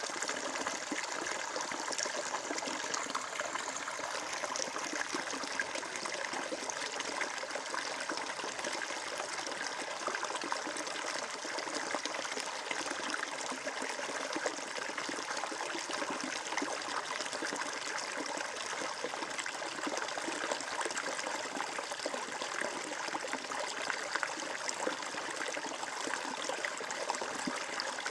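Flowing water, a steady stream trickling and splashing without pause.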